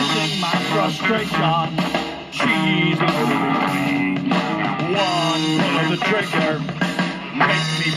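A song with guitar, drums and singing, playing from a CD through the small built-in speakers of a Victrola retro record/CD player. It has almost no deep bass.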